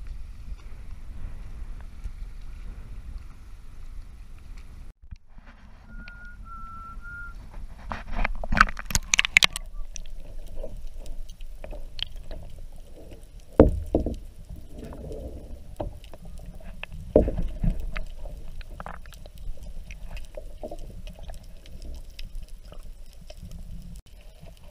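Wind and sea noise from a GoPro on a kayak. About five seconds in the sound cuts out abruptly and turns to the muffled underwater sound of the camera held in the sea, heard through its housing. There is a low rush of moving water, a burst of splashing and bubbling a few seconds later, and several sharp knocks, two of them loud.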